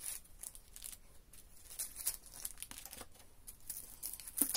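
Clear plastic zip bags holding cables crinkling and rustling as they are handled and set down, in irregular small crackles, louder near the end.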